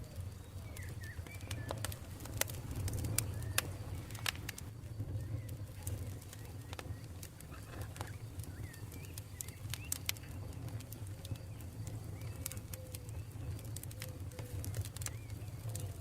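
Campfire crackling, with sharp pops and snaps scattered irregularly throughout over a steady low rumble, and faint bird calls in the background.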